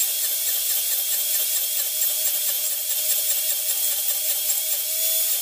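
Table saw running steadily with a faint whine over a loud hiss, its blade cutting timber on a crosscut sled to clear out a half-lap joint.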